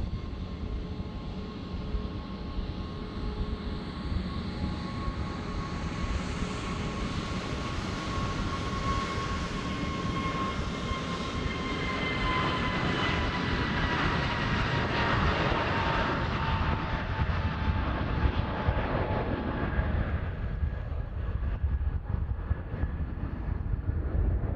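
Aer Lingus Airbus A321neo taking off: its twin turbofan engines spool up to takeoff thrust, and a whine of fan tones grows loud and slides down in pitch as the jet rolls past. About twenty seconds in, the whine fades and a low rumble is left as the jet accelerates away down the runway.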